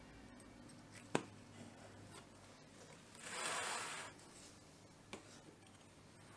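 Kitchen knife cutting through the crisp baked crust of a flan: a short rasping scrape of about a second, a little past the middle. A light click from the blade comes about a second in and again near the end.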